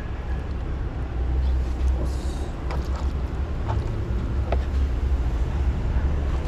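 A kitchen knife knocks lightly on a plastic cutting board a few times, about midway, while raw barracuda fillet is cut. A steady low rumble runs underneath.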